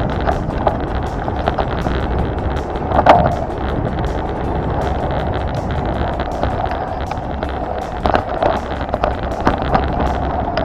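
Vehicle driving off-road: a steady engine and road drone with frequent knocks and rattles, and one louder thump about three seconds in.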